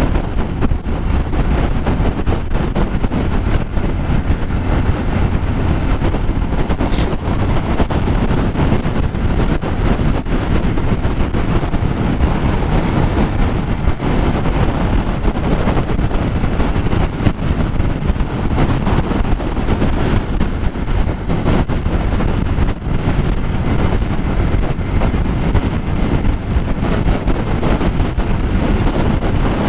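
Steady, loud wind rushing over the microphone of a Yamaha XTZ Crosser riding at highway speed, with the motorcycle's engine and road noise beneath.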